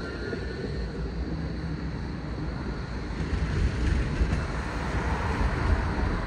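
Outdoor city background: a steady rumble of passing traffic with wind buffeting the microphone, swelling louder about halfway through.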